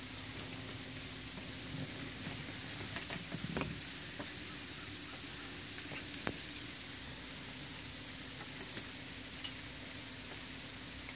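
Steady soft hiss of wet snow falling, with scattered light ticks a couple of seconds in and a low steady hum underneath.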